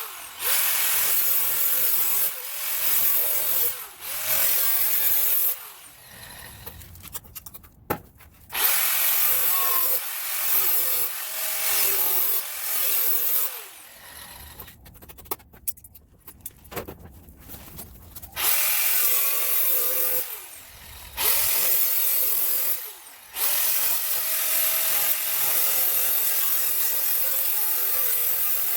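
Power tool cutting through the sheet-steel skin of a car trunk lid to remove rusted sections, running in bursts with several short pauses where it stops and starts again.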